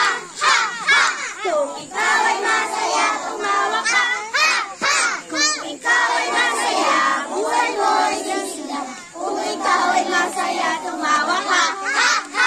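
A crowd of children shouting and calling out together, many high voices overlapping.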